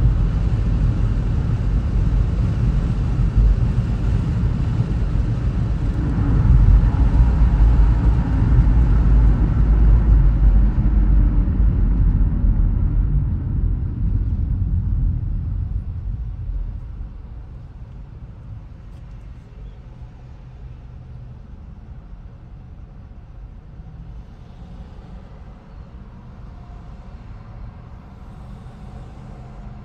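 Road noise from a car driving: a low rumble that grows louder about six seconds in, then drops sharply around sixteen to seventeen seconds to a much quieter steady hum.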